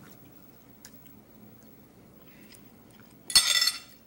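Light clicks of a fork picking up stewed corn from a china plate. A little over three seconds in, one loud burst of mouth noise lasts about half a second as a mouthful is taken and chewed.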